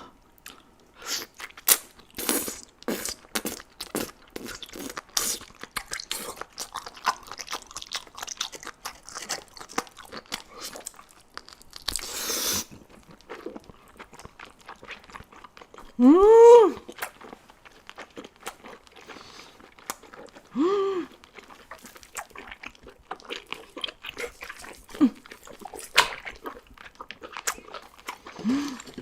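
Close-miked biting and chewing of a large cooked octopus tentacle: dense wet, sticky smacks and clicks of a very chewy bite. Two short hummed "mm" sounds break in around the middle.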